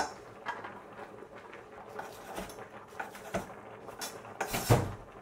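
Food prep on a wooden cutting board: a few light knife taps and small scrapes, then a louder scrape about four and a half seconds in as hands gather chopped onion off the board.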